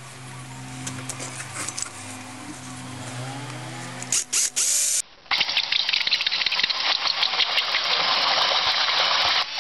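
Cordless drill with a 38 mm hole saw cutting a hole in a plastic rain gutter. First the drill runs with a steady low hum, and about four seconds in the teeth bite with loud rough bursts. Then a loud continuous rasp of the teeth through the plastic runs on and stops sharply near the end.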